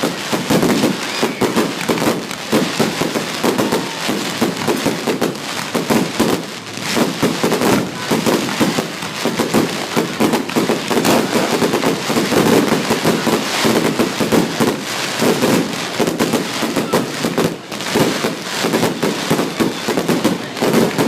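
Fireworks going off in a rapid, unbroken barrage of bangs and crackles, loud and dense with no gap.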